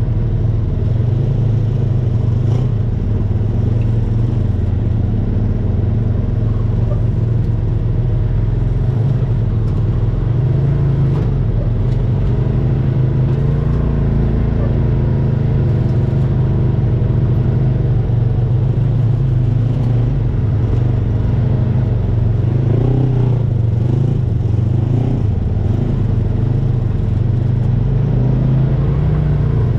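Side-by-side UTV engine running under way on a dirt trail, a steady low drone whose pitch wavers a little past the middle.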